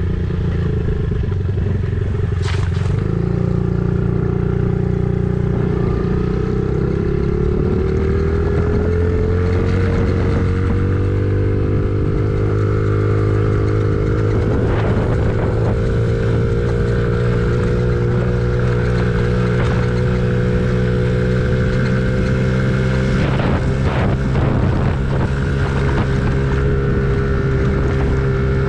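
An engine running steadily under load, with a higher whine that rises in pitch a few seconds in and then holds, and a few knocks near the end.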